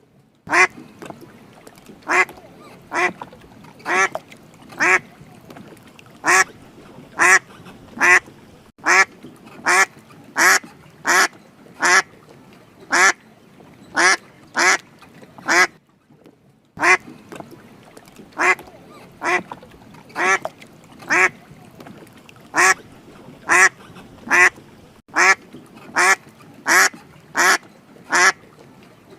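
Duck quacking over and over: short, loud, nasal quacks, one every half second to a second, with a brief pause about halfway through.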